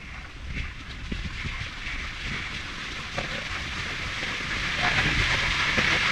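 Small gondola cable car approaching, its cabin and haul rope running with a hiss and light rattling that grows steadily louder toward the end.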